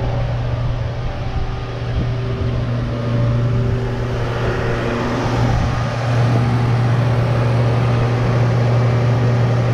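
John Deere tractor's diesel engine running steadily at a raised idle, a little louder from about six seconds in. It is held above normal RPM to keep the voltage up, because the tractor has a low-voltage problem.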